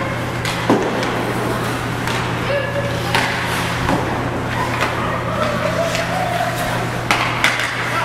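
Ice hockey game sounds: repeated sharp clacks of sticks on the puck and the puck hitting the boards, with voices calling out over a steady low arena hum.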